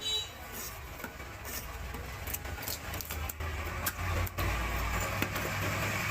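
A motor vehicle's engine running nearby with a steady low rumble that swells about four seconds in, with scattered short sharp knocks over it.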